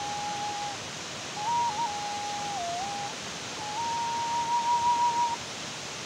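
A slow melody on a single pure, whistle-like tone: three long held notes stepping between a few nearby pitches, with small quick flourishes and a wavering near the end of the third. Under it runs a steady rushing hiss.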